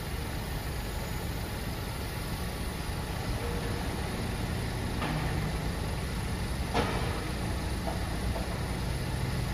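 Hyundai grapple-crane recycling truck's engine running at low revs as the truck creeps forward, a steady low rumble. A single sharp knock comes about two-thirds of the way through.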